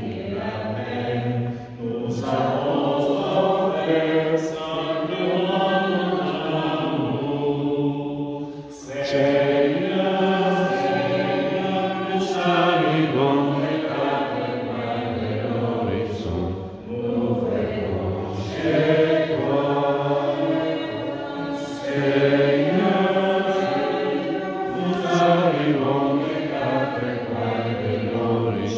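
A congregation singing a hymn together in a chant-like style, in phrases a few seconds long with short pauses between them.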